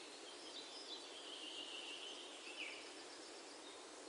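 Faint steady hiss, with a faint thin high tone wavering for a second or two in the middle.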